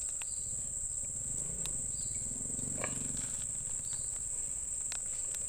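Insects, crickets or cicadas, giving one steady high-pitched continuous trill, with a few faint clicks scattered through it.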